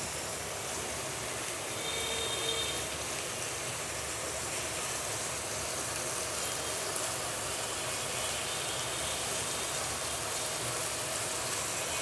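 Oil, onions and freshly added spice powders sizzling in an aluminium karahi: a steady hiss.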